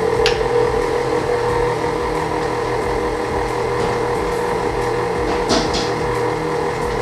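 Electric stand mixer running steadily on its lowest speed, a constant motor hum, while it creams cream cheese, butter and confectioner's sugar.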